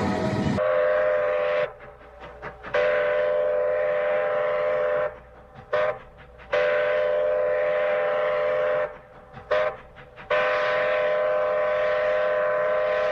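Multi-tone train horn sounding a steady chord in repeated blasts: one short blast, then long, long, short, long, the pattern of a grade-crossing warning signal. A different, noisier horn sound cuts off just after the start.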